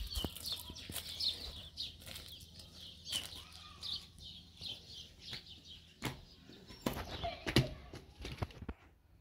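Small birds chirping in quick, repeated high notes, fading after about six seconds, with footsteps on gravel.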